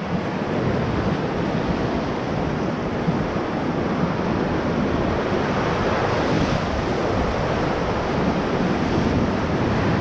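Whitewater rapids rushing steadily around a raft in the middle of the rapid.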